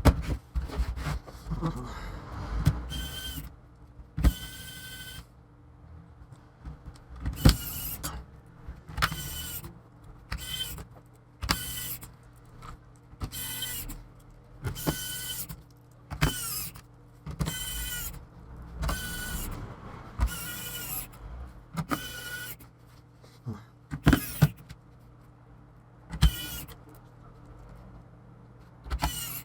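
Small electric screwdriver running in over a dozen short whining bursts of a second or less, driving the small screws of a laptop's bottom case.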